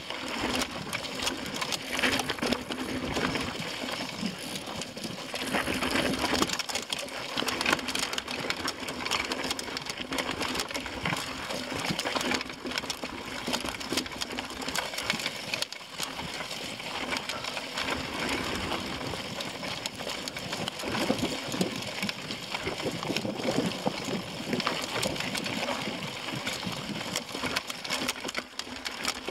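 Mountain bike rattling over rocky dirt singletrack: a continuous dense clatter of the bike and the camera shaking on the rough ground, with tyres crunching over dirt and stones.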